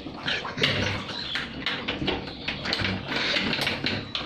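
Floodwater sloshing and splashing around the legs of a person wading waist-deep, an irregular rushing noise with scattered small splashes.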